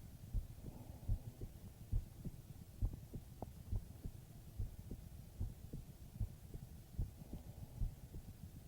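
A human heartbeat heard as if with an ear pressed to the chest: steady, low, muffled thumps, a little more than one a second.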